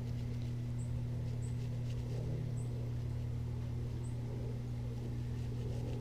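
Steady low electrical-sounding hum, with faint short high chirps every second or so and a few soft ticks.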